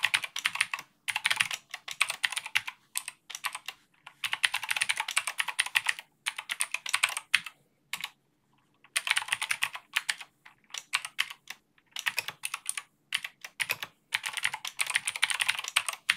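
Typing on a computer keyboard: fast runs of keystrokes in bursts, with short pauses between them and a longer pause of about a second near the middle.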